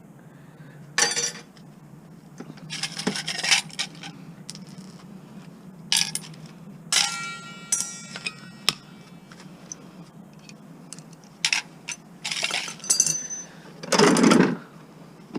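Metal scrap parts and small hardware clinking and clattering as they are handled and dropped, in about six separate bursts, one ringing briefly about seven seconds in.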